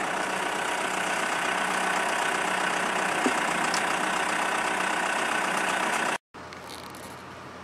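Engine of earthmoving equipment running steadily at a constant speed, with a faint steady whine. It cuts off abruptly about six seconds in, and a much quieter steady background follows.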